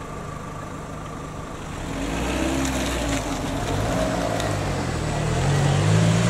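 A car's engine accelerating across the level crossing and away, its pitch rising as it pulls past. Early on, a steady ringing tone from the crossing's electronic warning bell cuts off about a second and a half in.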